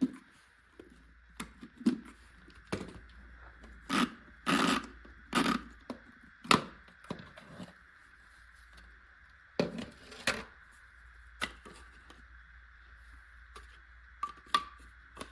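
Handling noises of unboxing: irregular knocks, clicks and scrapes as packaging and parts are moved about, busiest a few seconds in and again near the middle, over a faint steady hum.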